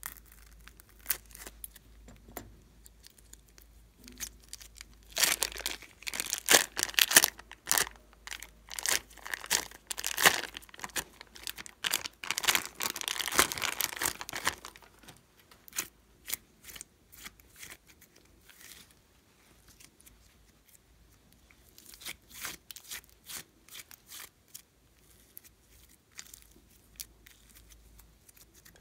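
Thin plastic piping bag crinkling and tearing as it is snipped with scissors and peeled off a lump of slime. The sound is dense and loudest in the middle, then thins to scattered softer clicks and crackles as the slime is pulled out and stretched.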